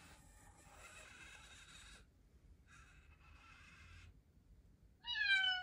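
Faint, steady whine of a robotic cat's small motors in two stretches as the robot moves its head and tail. About five seconds in comes a robotic cat's electronic meow, one loud call falling in pitch.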